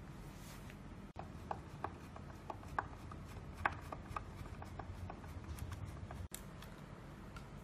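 A screwdriver working the small screws out of a hoverboard's plastic battery cover bracket: a faint string of irregular clicks and light scrapes of the bit in the screw heads, from about a second in until about six seconds.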